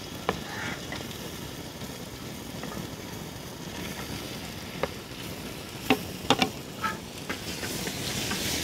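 Onions sizzling steadily in ghee and oil in a clay pot as sliced tomatoes are scraped in with a wooden spatula. A few sharp knocks from the spatula come around the middle, and the sizzle grows louder near the end as the tomatoes hit the hot fat.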